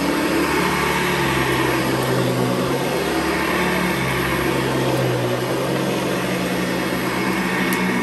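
Modified Hoover Convertible U4401 upright vacuum cleaner running on carpet, fitted with a 12-blade metal fan and a metal beater-bar brushroll. A steady rush of air over a low motor hum that shifts slightly in pitch.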